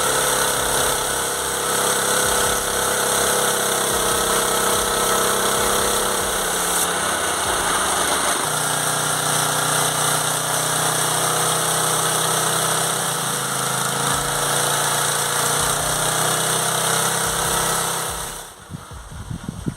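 Engine of a homemade mobile sawmill running steadily, its low note shifting about eight seconds in; the sound falls away sharply near the end.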